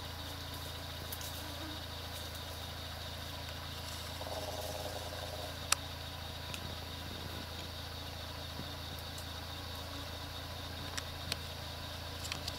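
Quiet outdoor background: a steady low hum and faint hiss, with a few faint clicks and a brief faint pitched sound a little over four seconds in.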